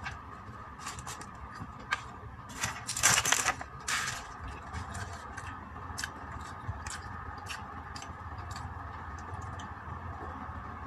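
Clear plastic pastry wrapper crinkling and rustling as it is pulled off, loudest about three seconds in with a second rustle just after. Scattered small clicks and taps follow, over a steady background hum.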